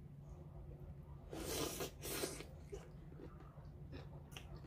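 Faint sounds of a person handling food at the table: two short hissing bursts around the middle, then a few small clicks and taps, over a low steady hum.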